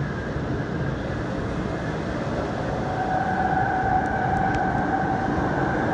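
MTR Island Line M-Train running with a steady rumble. About halfway through, a steady whine joins it and the sound grows slightly louder.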